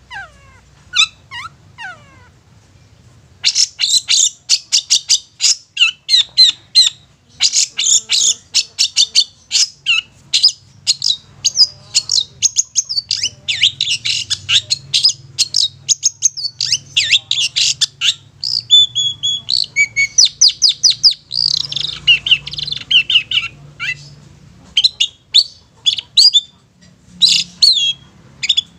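Long-tailed shrike (cendet) singing. A few separate high calls come first, then from about three seconds in a fast, continuous chattering song of sharp, rapidly repeated high notes. Near the end the song thins to spaced single notes.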